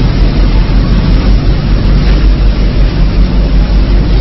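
Wood sawdust pallet making machine running: a loud, steady low rumble with an even hiss over it.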